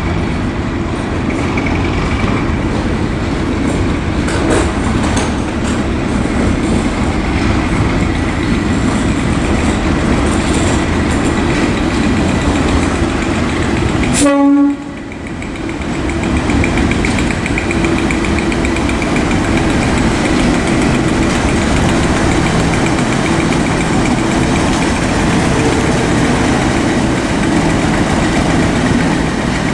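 Class 37 diesel locomotive's English Electric V12 engine running steadily as the locomotive approaches and draws past, with a short horn blast about halfway through.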